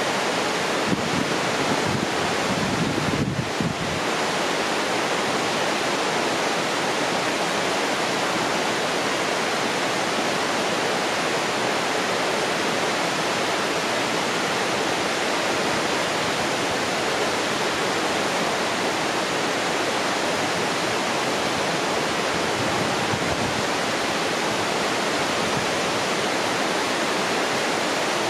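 Waterfall pouring steadily: an even, unbroken rush of falling water. Some low buffeting, like wind on the microphone, rides over it in the first few seconds.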